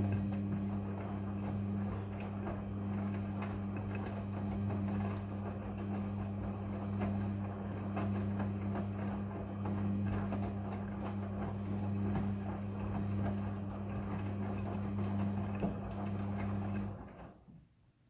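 Midea front-loading washing machine tumbling a wash load: a steady motor hum with the drum turning, and clothes and water sloshing and clicking inside. Near the end the drum stops and the sound dies away.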